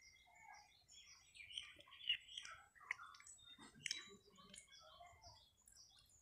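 Faint chirping of small birds, many short calls overlapping, with a few brief clicks among them.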